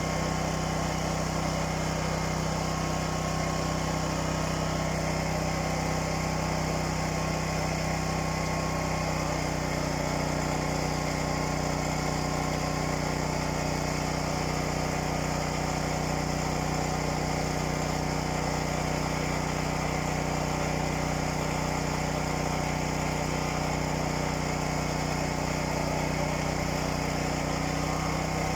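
A small engine running steadily with an even hum; its tone shifts slightly about nine seconds in.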